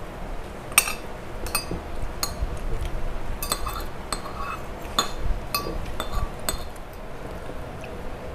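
Cutlery clinking against dishes at a meal: about ten sharp, irregular clinks over several seconds.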